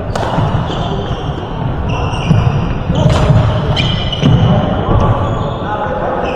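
Badminton doubles rally: a few sharp racket strikes on the shuttlecock, and short high squeaks of court shoes on the hall floor as the players move.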